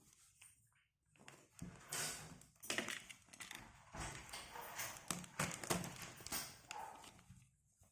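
Packaging being handled and opened by hand: crinkling and rustling with many sharp clicks, starting about a second and a half in and dying away near the end.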